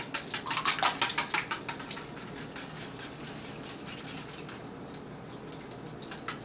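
Whisk beating eggs in a metal mixing bowl: a fast, even clicking of about seven strokes a second, loud for the first two seconds, then softer, dying away about four and a half seconds in.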